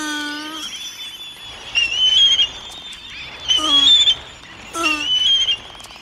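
Laysan albatross chicks calling: three short, squealing calls that dip slightly in pitch, with thin, high, wavering whistle-like cries between them.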